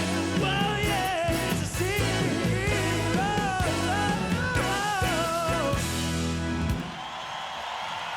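Live rock band playing an instrumental outro, a wavering lead melody over bass and drums, then stopping together on a final hit about seven seconds in; a quieter, even noisy wash carries on after the stop.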